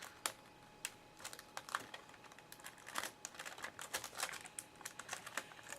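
Irregular small clicks and crinkling of a taped-in laptop LCD panel being pried and peeled free of its adhesive tape by hand.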